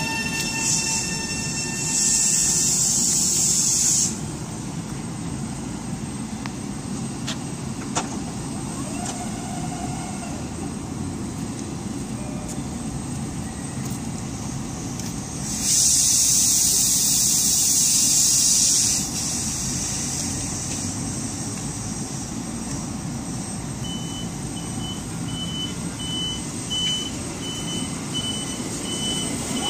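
Long Island Rail Road electric train standing at the platform after stopping, with a steady hum from its equipment and two loud hisses of released compressed air, one about two seconds in lasting about two seconds and another near the middle lasting about three seconds. Near the end a high beep repeats about twice a second.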